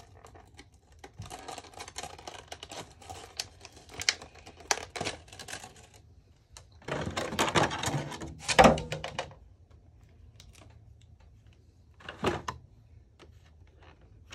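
Model-plane box packaging being handled as the model is taken out: a run of small clicks and rustles, then a louder rustling burst with a sharp knock midway, and one more short rustle near the end.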